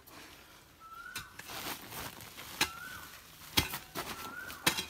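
A hoe scraping and chopping into loose earth while soil is shovelled into sacks, with two sharp strikes near the end. A bird's short rising whistle repeats three times, about every one and a half seconds.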